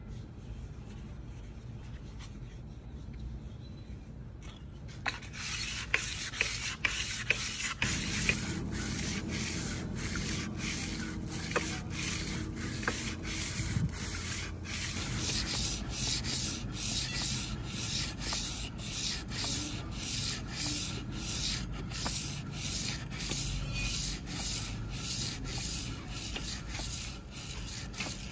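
Rhythmic back-and-forth abrasive rubbing by hand, about one and a half strokes a second, starting about five seconds in.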